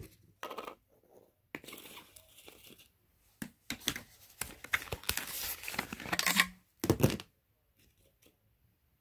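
Thin clear plastic cups and a plastic saucer being handled, crinkling and clicking in several noisy bursts. The longest stretch runs through the middle, and a sharp knock comes near the end.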